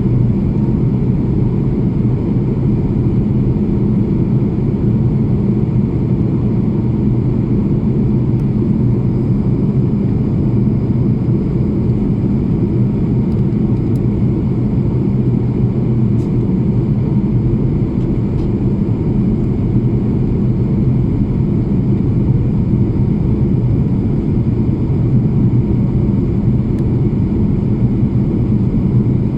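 An airplane's engines and airflow making a steady, unchanging low drone, with a few steady hum tones in it.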